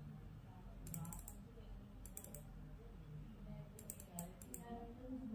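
Computer keyboard keys tapped in three short quick runs, about one, two and four seconds in, over a faint low room hum.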